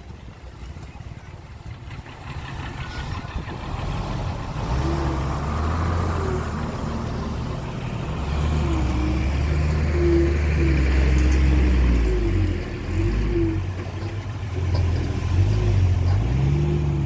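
Heavy diesel engine of earth-moving machinery running under load and revving. It grows louder about a quarter of the way in, and its pitch rises and falls.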